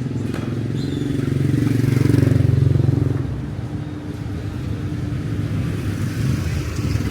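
Motorbike engine running close by, growing loudest about two to three seconds in and then easing off, with an engine rising again near the end.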